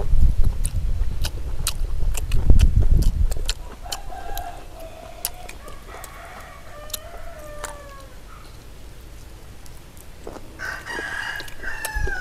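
A rooster crowing, one call about four seconds in and a louder one near the end, over scattered sharp clicks. Low thumping and rumble fill the first three seconds.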